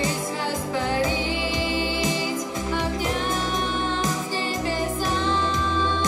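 Girl singing a song into a microphone with instrumental accompaniment, holding some long notes.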